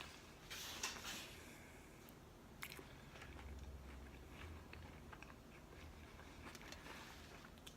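Faint chewing and mouth sounds of a person eating a taco, with a louder bite about half a second to a second in and a few small clicks after.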